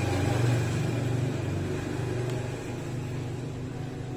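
A low, steady rumble, loudest about half a second in and slowly fading.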